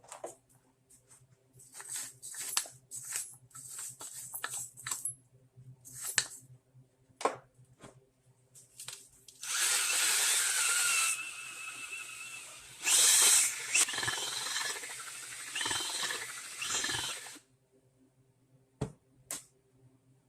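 Handheld power tool working metal on a repaired snowblower wheel. It gives a string of short bursts, then runs for several seconds at a time with a whine that wanders in pitch.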